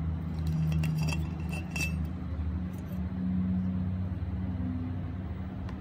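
A stainless steel water bottle and its plastic flip-top lid being handled, with a run of light clinks and taps in the first two seconds as the lid comes off. Some of the clinks carry a short metallic ring, over a steady low hum.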